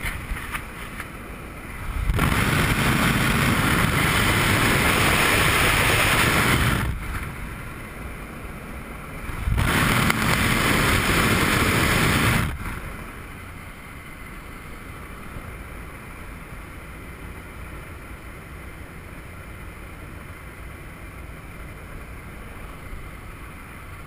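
Steady drone of the jump plane in flight, heard inside the cabin with the door open. Two loud rushes of wind noise break in, about four seconds and about three seconds long, as the microphone meets the slipstream at the open door. They give way to the quieter, steady cabin noise for the rest.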